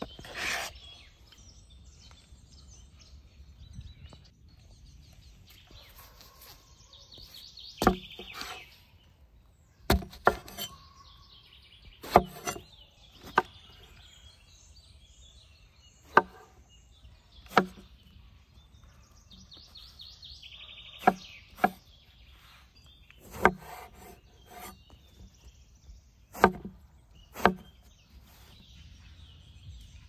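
Knife cutting through eggplant onto a wooden cutting board: about a dozen separate sharp knocks, one every second or two. Birds chirp faintly in the background.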